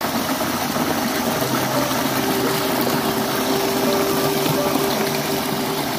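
A narrow jet of water pouring out of a grassy bank and splashing into a pool, a steady rushing gush.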